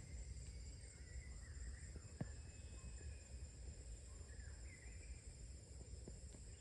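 Faint mountain forest ambience: a steady high insect buzz with a few short bird chirps over a low rumble, and one sharp click about two seconds in.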